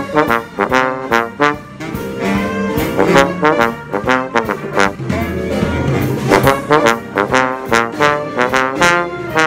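Trombone played close up with a big jazz band, in a mix of short, punchy notes and held notes.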